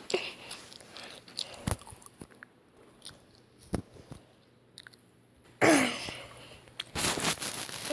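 Jacket fabric rustling with scattered small clicks and scrapes as a cat grabs at it, growing to a louder rustle near the end. A short falling vocal sound comes about five and a half seconds in.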